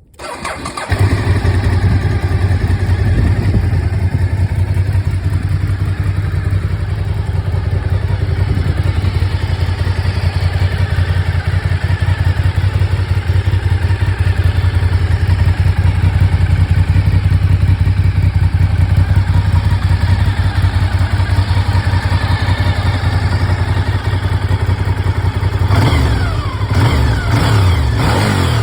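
Honda RC51 SP2's 999 cc 90-degree V-twin on its stock exhaust, starting up about a second in and idling with a steady, lumpy low rumble. Near the end it is revved with a few quick throttle blips.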